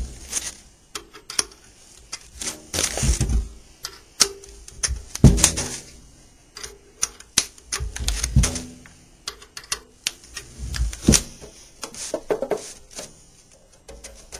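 Irregular metallic clicking and rattling of a banjo's bracket hooks, nuts and tightening wrench as the pot is turned and the hooks tightened to draw the skin head down, with a few heavier knocks.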